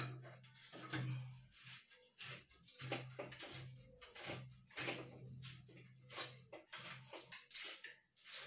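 Scattered clicks, knocks and scrapes of metal shower fittings being handled at the wall pipe, over a low hum that comes and goes.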